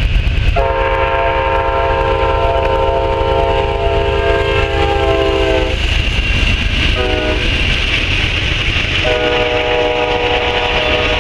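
Amtrak Auto Train with GE Genesis diesel locomotives passing at speed, with the steady rumble and rail noise of its bilevel Superliner cars rolling by. The locomotive horn sounds a long blast starting about half a second in, a short blast about seven seconds in, and another long blast near the end.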